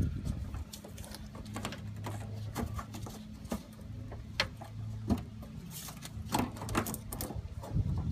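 Scattered clicks and taps of a plastic quick-connect fuel-line fitting and its clip being worked off a 2002 Ford Focus fuel filter, over a steady low hum.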